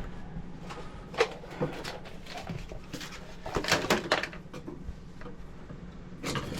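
Scattered light clicks and rustles of hands preparing electrical wires at a panel box, with a busier cluster of handling noises around the middle.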